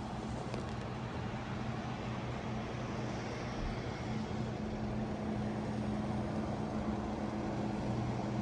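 Steady low machine hum over an even rushing noise, with no change in pitch or level.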